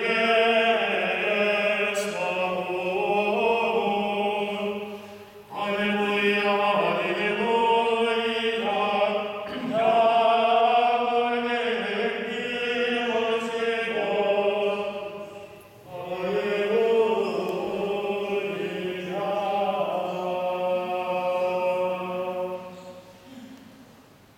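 Russian Orthodox monks singing a cappella chant together in long held chords, phrase by phrase, with short breaks about five and a half, nine and a half and sixteen seconds in, fading out near the end.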